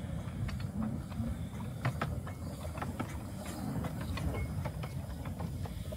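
Small narrow-gauge steam locomotive rolling slowly along the track: a low rumble with irregular clicks and clanks from its wheels and running gear.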